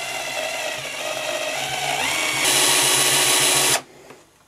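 Power drill with a small twist bit boring into the plastic shell of a Mystic 8 Ball. The motor whine rises in pitch about two seconds in, runs louder with a hiss for just over a second, then stops abruptly near the end.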